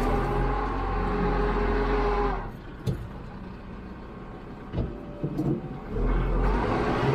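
Kubota MX5400 tractor's diesel engine worked hard at high revs while trying to pull free of deep mud, easing off about two and a half seconds in with a few sharp clunks, then revving up again near the end.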